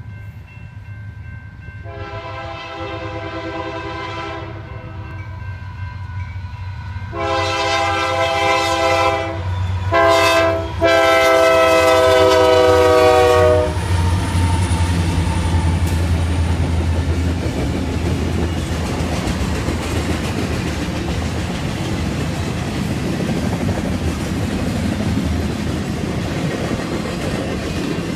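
Diesel locomotive's multi-note air horn sounding the grade-crossing signal, long, long, short, long, the last blast dropping slightly in pitch as it goes by. Under and after it, the low drone of the locomotive and the steady rumble and clatter of intermodal cars rolling past on the rails.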